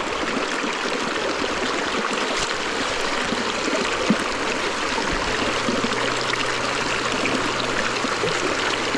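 Steady rush of a flowing trout stream, running water with no change in level.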